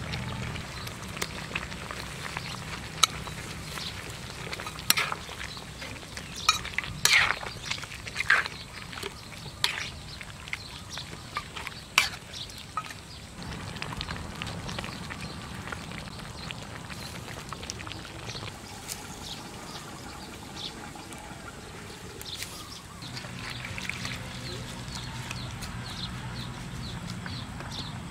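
A wide metal pan of goose broth simmering, with bubbling and scattered sharp pops and clicks, most of them in the first half. A low steady hum sits underneath at the start and again near the end.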